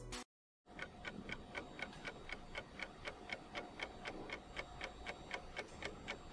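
Clock ticking sound effect: an even run of faint ticks, about four a second, starting after a brief silence, used to mark time passing.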